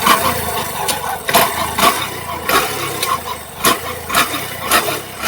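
Honda SP125 single-cylinder motorcycle engine running with a sharp knock about twice a second. This is the abnormal engine knock that the mechanic finds very strange and will open the engine to find.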